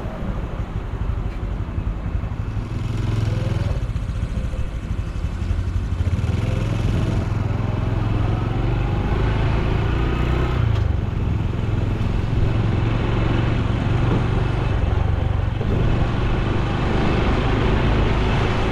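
Honda Super Cub C125's single-cylinder four-stroke engine and exhaust running under way, its pitch rising in long pulls with a couple of brief dips.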